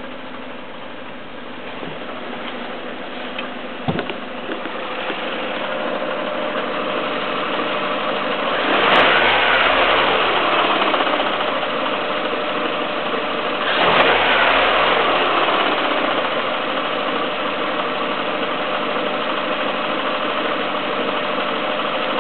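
Peugeot 307 1.6 16v four-cylinder petrol engine idling, revved briefly twice about five seconds apart, with a single sharp click about four seconds in. It is the engine the owner records for a strange noise.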